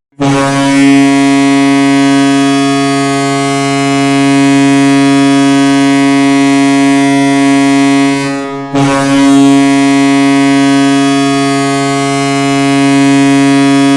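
Hockey goal horn, a large ship-style air horn, blowing two long, steady, loud blasts: the first lasts about eight seconds and cuts off, and the second starts again almost at once.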